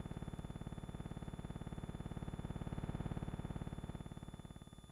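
A low, rapidly pulsing buzzing drone with a thin steady whine above it, fading away near the end.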